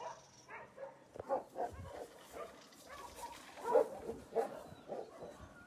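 Dogs making short, scattered calls, with a few louder ones a little past the middle.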